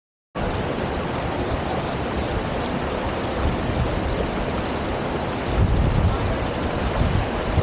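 Steady rushing of fast-flowing water, cutting in just after the start, with a stronger low rumble of wind on the microphone from about five and a half seconds in.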